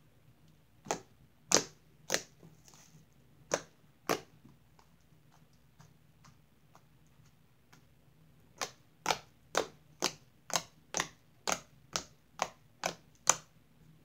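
Sharp hand taps, a few scattered at first, then a steady run of about two a second near the end.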